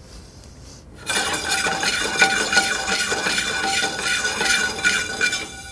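Whole cardamom seeds rattling and skittering in a dry metal sauté pan, kept in constant motion while they toast. The rattling starts about a second in and stops just before the end.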